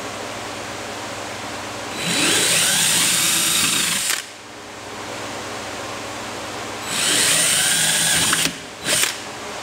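Cordless drill boring holes in a plastic kayak deck: two runs of about two seconds each, each starting with a rising whine as the motor spins up, then a brief blip of the trigger near the end. A steady fan hum runs underneath.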